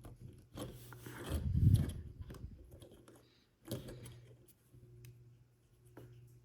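Small plastic snap-together toy car parts being handled and fitted together, with plastic rubbing and scraping. A dull bump about a second and a half in is the loudest sound, followed by a sharp knock near four seconds and a faint click near six.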